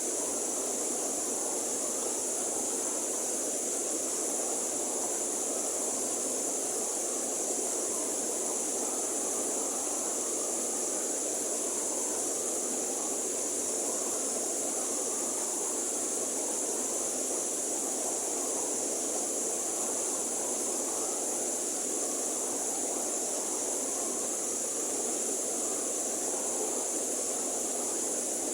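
River water flowing and rushing steadily, with a constant high hiss over it.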